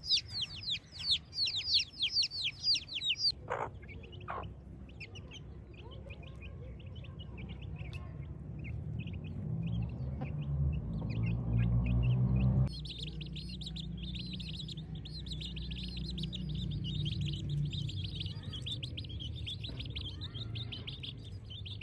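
Young chicks peeping, many rapid high chirps that fall in pitch. The chirping thins out for several seconds while a low rumble builds underneath, then cuts off abruptly about thirteen seconds in, and dense peeping resumes.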